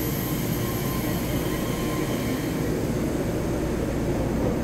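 Taiwan Railways EMU3000 electric multiple unit pulling out along the platform: a steady low rumble of the moving train.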